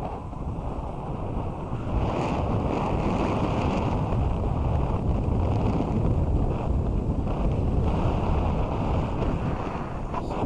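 Wind rushing over the helmet camera's microphone while riding downhill, mixed with the steady scrape and hiss of a snowboard sliding over packed snow; it gets louder about two seconds in as speed picks up.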